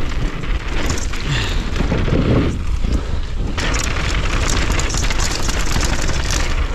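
Wind buffeting a GoPro's microphone as a downhill mountain bike rides fast down a dirt jump trail, a dense rushing noise with a heavy low rumble, mixed with tyre noise on hardpacked dirt.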